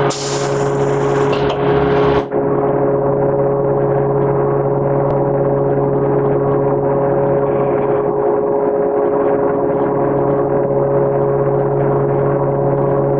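Steady factory machinery drone of a hot-stamping line: a continuous low hum with several fixed tones over a bed of noise. The higher hiss drops away abruptly about two seconds in.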